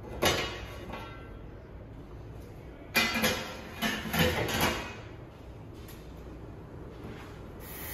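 Stainless-steel lid of an ultrasonic cleaner tank lifted open with a metal clunk, then lowered shut about three seconds in with another clunk and a few knocks and rattles.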